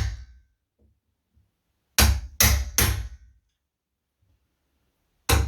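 Wood chisel being tapped into the edge of a door, cutting round the outline of the latch plate recess: three quick sharp taps about two seconds in, then another near the end.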